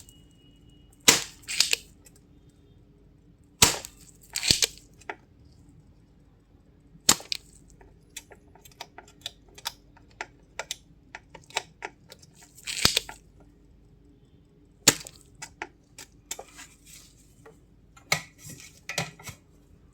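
Irregular sharp clicks and snaps of hands and tools working on an air-conditioner circuit board and its wire connectors, a few louder ones standing out.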